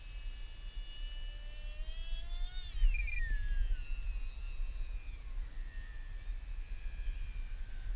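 Electric motor and propeller of a ParkZone Stryker RC flying wing, running on a 4-cell LiPo, whining high overhead. Its pitch climbs, then drops sharply about three seconds in as it passes, then holds steadier. Low wind rumble on the microphone.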